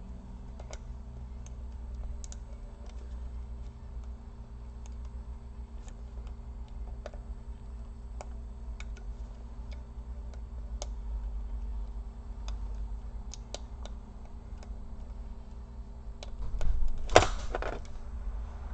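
Scattered light clicks and ticks of small plastic laptop parts and ribbon-cable connectors being handled during reassembly, over a low steady hum. There is one louder clatter about 17 seconds in.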